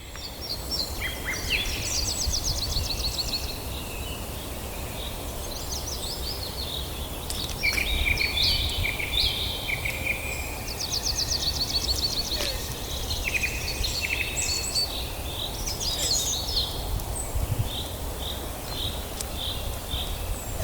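Songbirds singing, with rapid trills and short repeated chirps, over a steady low rumble of background noise.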